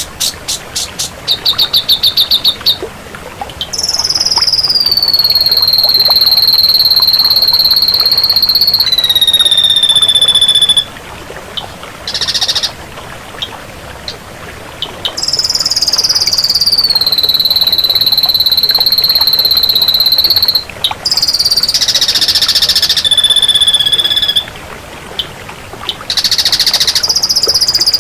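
Ashy drongo singing: a run of rapid high ticking notes, then long, high whistles, each sliding down at the start and then held for several seconds, broken by short buzzy rasps.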